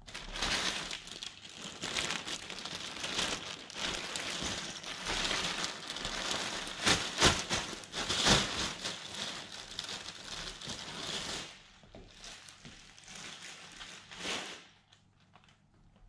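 Thin plastic bag being handled and crumpled, crinkling for about eleven seconds, then rustling more softly until it stops near the end.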